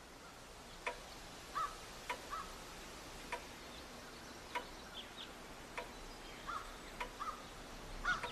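Faint, regular ticking about once every second and a bit, with a few soft, short chirps in between.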